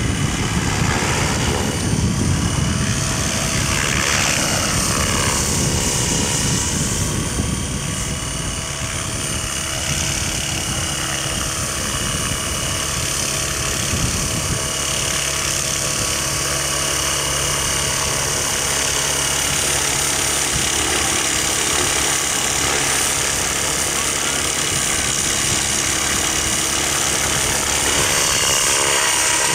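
Outrage Fusion 50 electric radio-controlled helicopter flying: the steady whine of the motor and rotor with the whoosh of the blades. The pitch sweeps up and down as it passes in the first few seconds, then holds a steady tone as it hovers low.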